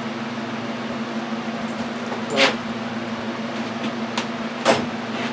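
A steady mechanical hum holding one low tone, with two short knocks about two and a half and nearly five seconds in.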